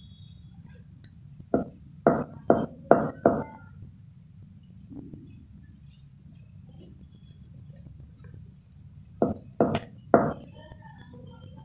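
Kitchen knife knocking through a soft sesame-jaggery slab onto the wooden board beneath as the slab is cut into squares. There are five quick knocks about a second and a half in and three more near the end. A steady high-pitched pulsing tone sounds throughout.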